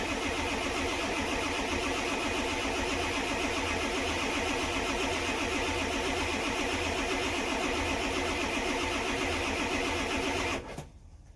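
Ford 7.3 Power Stroke diesel engine, a steady, even clatter for about ten seconds that cuts off abruptly near the end.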